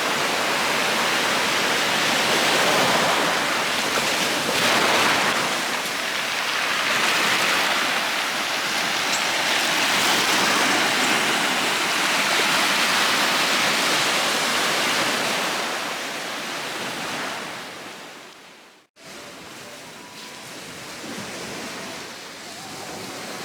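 Waves washing onto the shore, a steady surf hiss that swells and eases. It cuts off abruptly near the end, and a quieter wash of surf follows.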